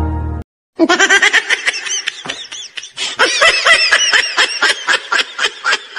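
Laughter: a rapid run of short laughing bursts, each rising and falling in pitch, breaking in suddenly about a second in after the music cuts off.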